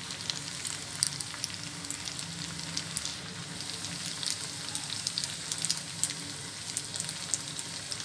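Shell pasta with egg and onion frying in a pan on the stove: a steady sizzling hiss with scattered small crackles and pops.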